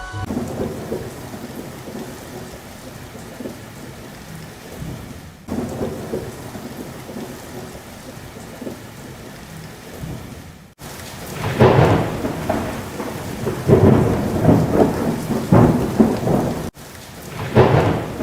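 Storm sound effect: steady heavy rain with rolling thunder, the thunder rumbles growing louder in the second half. The sound breaks off abruptly and restarts a few times, as if spliced.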